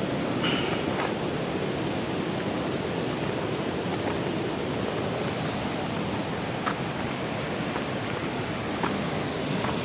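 Steady rush of flowing water, with a few faint ticks over it.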